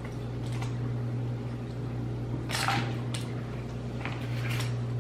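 Cardboard jigsaw puzzle pieces being sorted by hand on a tabletop: a few short, light rustles and clicks over a steady low hum.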